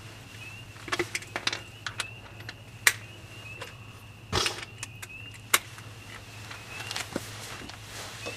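Irregular metallic clinks and knocks of hand tools and sockets being handled, the sharpest about three seconds in and a little after five seconds. A faint steady high whine and a low hum run underneath.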